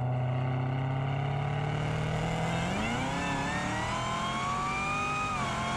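Hennessey Exorcist Camaro ZL1's supercharged 6.2-litre V8, tuned to 1000 hp, holding a steady note and then revving up hard under full acceleration. The pitch climbs for a couple of seconds, drops briefly on an upshift near the end, and starts rising again.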